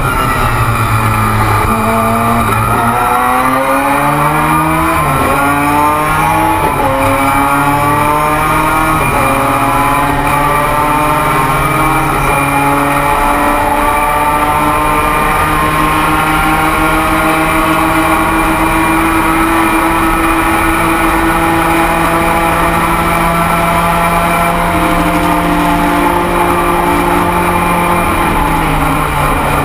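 Mazda 13B rotary race engine heard from inside the cockpit, accelerating hard: its pitch climbs and dips through several quick upshifts. It then holds steady at high revs flat out on a long straight, and the revs fall near the end as the driver lifts.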